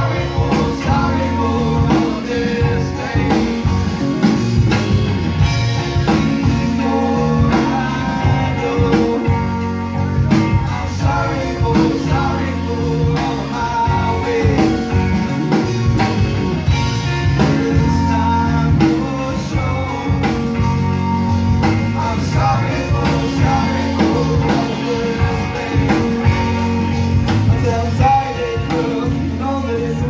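Live rock band playing: two electric guitars, electric bass and a drum kit.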